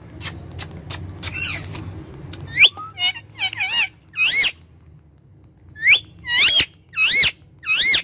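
Rose-ringed (Indian ringneck) parakeet calling: a run of about nine short, shrill calls, each rising then falling in pitch. They come in two clusters, starting about two and a half seconds in. Before them there is a low rumble with a few light clicks.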